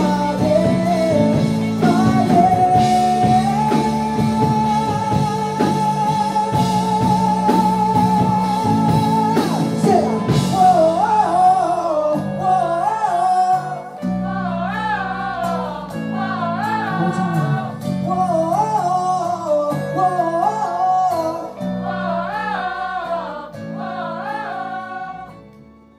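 Live rock band playing with a lead vocal over electric bass, guitar and drums. A long note is held and sung with vibrato, then about halfway through the drums and cymbals drop away, leaving repeated sung phrases over the guitar and bass. The music fades out at the end.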